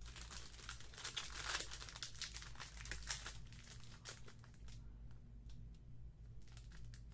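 Foil trading-card pack crinkling and tearing as it is opened by hand: a dense run of crackles that thins out about halfway through.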